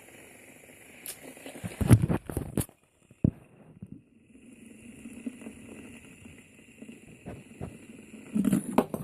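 A few knocks and thumps about two seconds in, a single sharp click a little after three seconds, and more knocks near the end, over a steady faint hiss.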